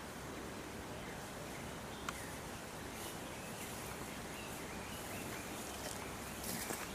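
Steady outdoor background noise with faint chirps in the latter half and a single sharp click about two seconds in.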